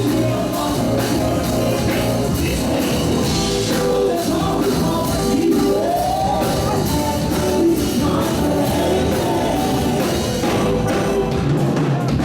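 Live gospel band playing a rock-style hymn arrangement, with singing over electric band instruments and a drum kit.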